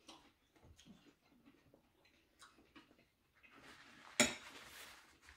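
Quiet table sounds of a meal: faint ticks of forks against plates, with one sharp clink about four seconds in followed by a brief hiss.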